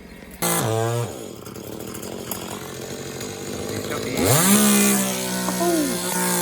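Chainsaw revved hard about half a second in and dropping back, then run up to full speed about four seconds in and held at a steady high pitch.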